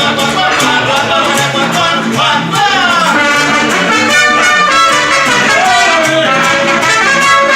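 Mariachi band playing live: an upbeat Latin dance number with singing over brass and a steady beat.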